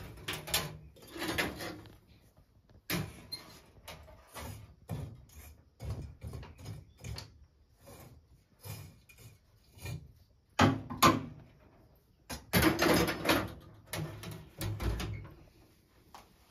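Metal clanks and scrapes from a sheet-metal stove as its front door is worked open and the firebox is poked with a metal rod: a run of irregular knocks and rattles, loudest about two-thirds of the way in.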